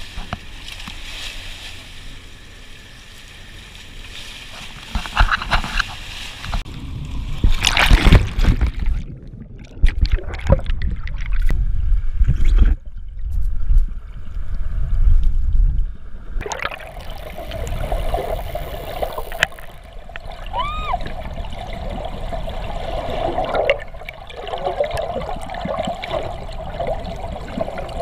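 Seawater splashing and sloshing, with a loud splash about eight seconds in. After it the water sounds muffled and deep, gurgling and churning.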